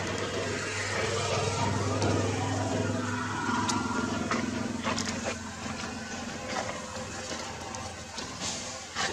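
A motor vehicle's engine running with a steady low hum that rises a little in pitch about two seconds in and fades later on, with a few light clicks.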